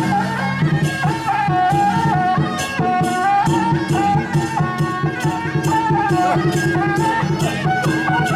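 Traditional folk music for a temple procession: a high melody line over steady percussion strokes about twice a second.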